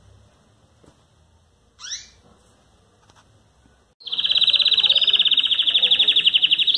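A caged canary gives a single short chirp about two seconds in. About four seconds in, a caged songbird starts a loud, fast, even trill and holds it.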